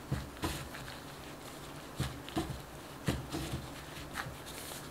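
A gloved hand pressing and squishing shaggy, slightly sticky soft-pretzel dough in a glass bowl to gather the last dry flour into one lump: soft irregular squelches and pats, one or two a second.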